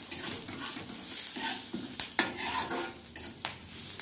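Tempering of mustard seeds, dals, curry leaves, green chilli and asafoetida sizzling in hot oil in a pan while being stirred, with a few sharp knocks of the stirring utensil against the pan.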